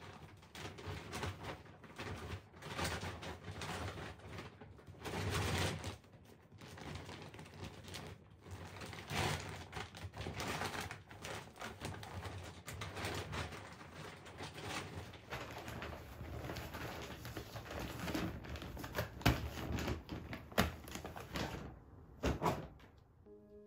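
Rustling and shuffling of a thick futon mattress topper being folded and forced into a fabric storage bag, in uneven swells every second or two, with a few sharp knocks near the end.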